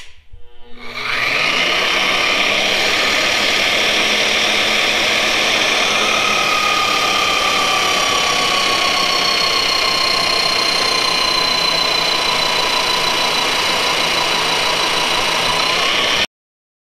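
Magnetic drill starting about a second in and running an annular cutter into a steel truck frame rail to bore a bolt hole, a loud steady motor whine that slowly falls in pitch. It cuts off suddenly near the end.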